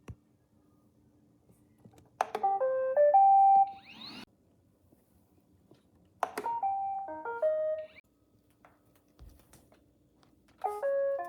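iRobot Roomba 880 robot vacuum's speaker playing short electronic jingles: three quick multi-note beep melodies, a few seconds apart, over a faint steady hum.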